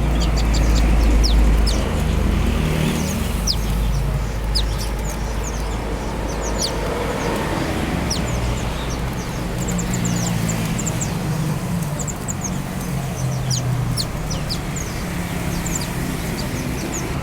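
Many caged small birds chirping, with quick short high calls scattered throughout. Under them runs a steady low engine rumble, loudest in the first two seconds.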